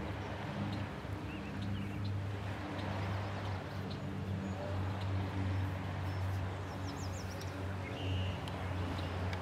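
Outdoor ambience: a steady low hum under a light hiss of breeze, with a few brief high bird chirps and a quick run of them about seven seconds in.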